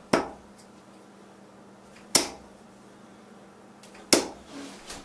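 Three 26-gram straight-barrelled steel-tip darts striking a bristle dartboard one after another, each a sharp thud, about two seconds apart.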